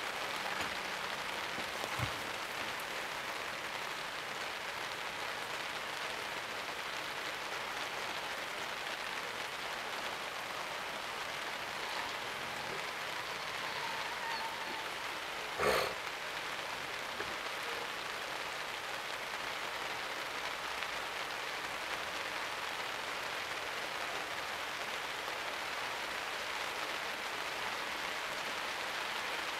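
Steady rain: an even hiss, with one short knock about halfway through.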